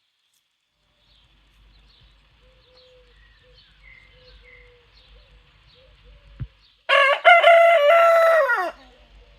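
A rooster crows once, loud and long: a call of nearly two seconds with a short break near its start, held on one pitch and then dropping away at the end. Before it there are faint scattered chirps and a single soft click.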